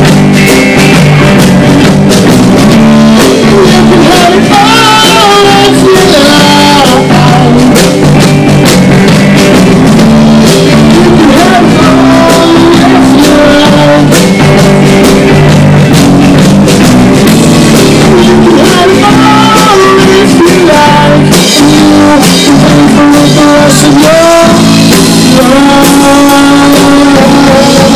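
Live rock band playing loudly: electric guitar, bass guitar and drum kit.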